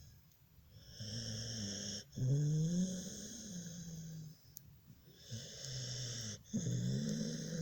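A sleeping pet snoring, with a low pitched snore on both the breath in and the breath out. Two full breaths can be heard, with a short quiet pause between them.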